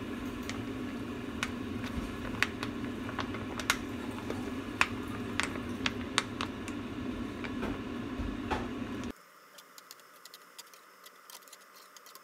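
Chicken and cream sauce sizzling in a frying pan on a gas stove: irregular sharp pops and crackles over a steady low rush. About nine seconds in, the sound drops abruptly to faint crackling.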